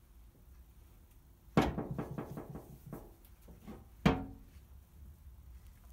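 Two sharp knocks about two and a half seconds apart as tools and parts are handled and put away. The first knock is followed by a short rattle of lighter clicks.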